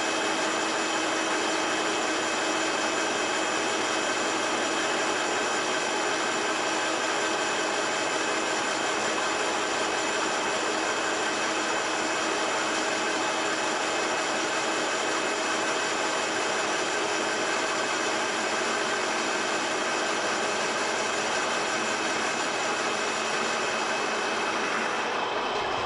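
Kingston engine lathe turning a flat belt pulley at about 315 RPM under power feed, taking a roughing cut: a steady whine of several held tones over the hiss of the cut. The highest part of the hiss drops away about a second before the end.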